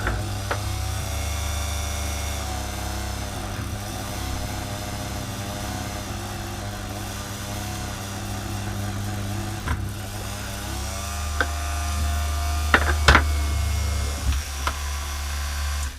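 Titan 130 W electric rotary multi-tool running with a fitted accessory, its motor whine dipping in pitch and recovering again and again. A few sharp ticks come near the end.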